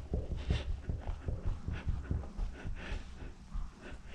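Lint-free rag wet with isopropyl alcohol rubbed hard back and forth over a truck's painted hood, scrubbing a body-line valley clean, about two to three strokes a second, fading out a little over halfway through.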